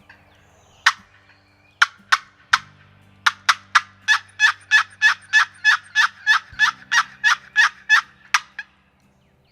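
Wild turkey calling: a series of short, sharp notes, a few spaced ones and then a steady run of about three a second that stops abruptly.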